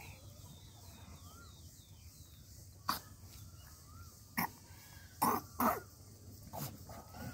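A goat kid eating grass gives about five short, sharp cough-like snorts, spread over a few seconds from about three seconds in. Faint bird chirps sound in the background.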